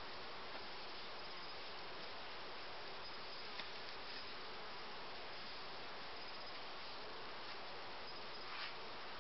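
Honeybees humming steadily around an open hive, with a faint click about three and a half seconds in and a brief louder swell near the end.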